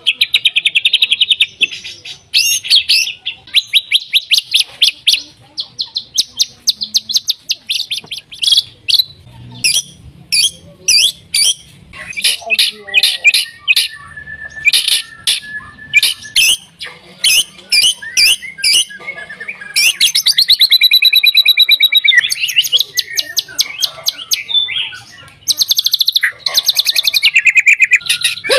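White-rumped shama (murai batu) singing a loud, varied song: quick runs of sharp repeated notes, fast trills and sliding whistled phrases, with barely a pause.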